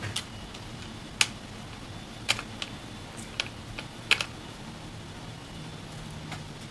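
Metal wrenches clicking against the wheel axle hardware as the axle screws are cranked down tight: scattered sharp clicks, roughly one a second, with the loudest about a second in and just after four seconds in.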